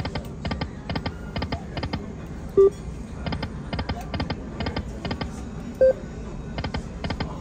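Slot machine sound effects: a steady run of sharp doubled clicks, about two to three pairs a second, with two short, louder beeps, about two and a half and six seconds in.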